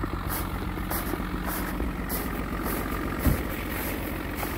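1982 Nissan Patrol's SD33T turbo-diesel straight-six idling steadily, with a single thump about three seconds in.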